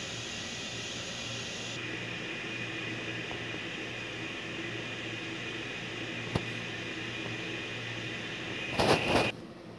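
Steady machine hum and hiss with a faint high tone. A single sharp click about six seconds in, and near the end a short, loud rustling burst, after which the hiss and tone drop away.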